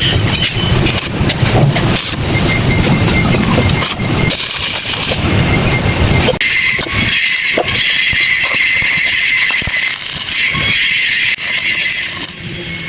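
Electric welding arc crackling as thin pipe is welded, a steady run of dense crackle. About six seconds in the deeper part of the sound drops away and the crackle turns thinner and higher.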